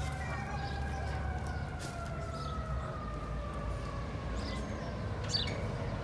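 A siren whose tone slides slowly down in pitch through the whole stretch, over a steady low rumble.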